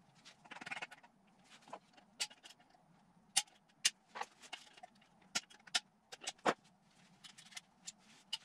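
Irregular sharp metallic clicks and short scrapes of a hand tool prying at a small steel circlip on a gearbox shaft, worked off without a proper circlip tool.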